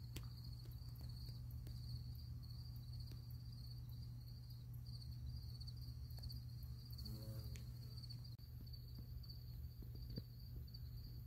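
Crickets chirring faintly in the background: a steady, rapidly pulsing high trill, over a low steady hum.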